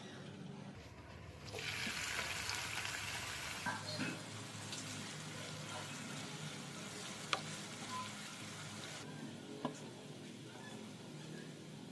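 Sliced onions sizzling in hot oil in a frying pan: a loud burst of sizzling starts about a second and a half in as they hit the oil, easing after a couple of seconds into steady frying. A few sharp clicks of a spoon stirring against the pan.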